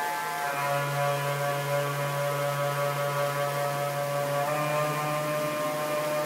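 Saxophone holding long, unbroken drone tones with several pitches sounding together, moving to a new set of tones about half a second in and again about four and a half seconds in, over the rush of a stream.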